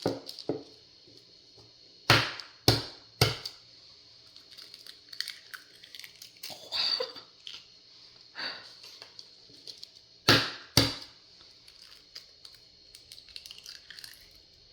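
Eggshells cracking as eggs are struck against a hard edge. There are three sharp cracks about two seconds in, and two more about ten seconds in.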